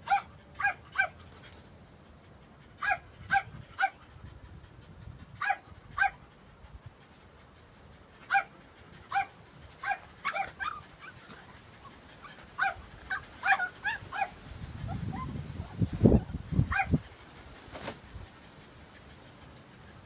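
Cavalier King Charles Spaniels barking in short, sharp, high yips, mostly in quick groups of two or three with pauses between. About fifteen seconds in, a low rumble and a loud thump are heard, with another yip just after.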